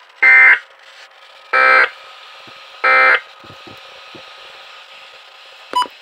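Weather radio broadcast's SAME digital alert header: three short, harsh data bursts about a second apart, heard through weather radio receivers' speakers. They mark the start of an emergency alert, here a severe thunderstorm warning. A very brief beep comes near the end.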